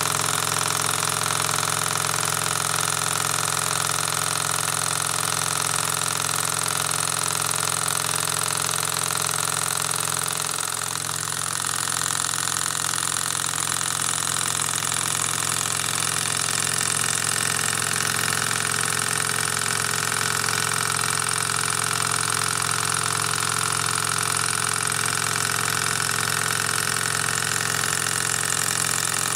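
PM Research Peanut Rider Stirling engine running steadily on its first run, an even, unchanging mechanical running sound of the flywheel and pistons.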